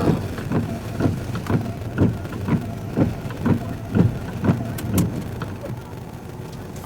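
Steady run of low thumps, about two a second, inside a vehicle, dying away about five and a half seconds in, over the vehicle's running noise.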